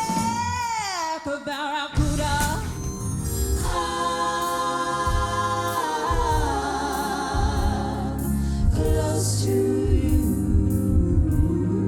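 A woman singing a 1970s-style pop ballad over a band, holding long notes with vibrato. About a second in, one note slides steeply down.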